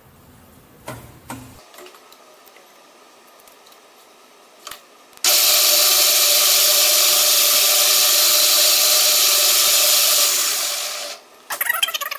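Metal lathe spindle and chuck running, switching on abruptly about five seconds in with a steady whine and hiss, then winding down and stopping near the end. A few clicks come before it starts, and metal rattling and clicking follows as it stops.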